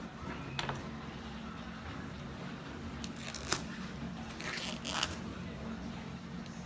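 Retail product box being opened by hand: short rustles and scrapes of cardboard and packaging, with one sharp click about three and a half seconds in.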